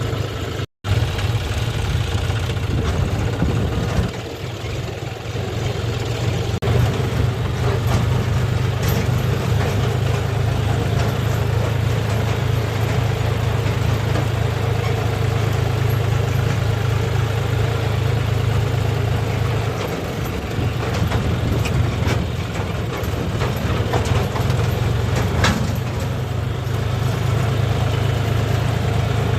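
Tractor's diesel engine running steadily under way, a low drone with scattered knocks and rattles on top. The sound cuts out completely for a moment just under a second in.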